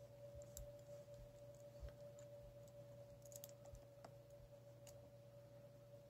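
Faint, sparse clicks and ticks of a lock pick working the pins of an old Master Lock No. 1 pin-tumbler padlock under tension, over a steady faint hum.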